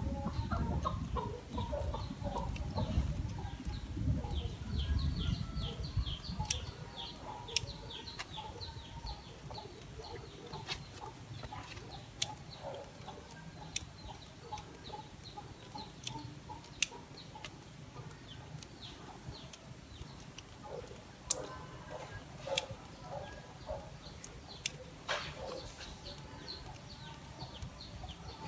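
Pruning shears snipping twigs off a red-bud banyan bonsai, a sharp click every few seconds, over birds calling in the background.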